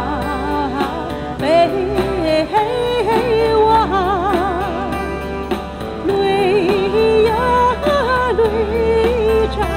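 Background music: a woman's voice sings long, wavering notes with heavy vibrato over an acoustic guitar accompaniment.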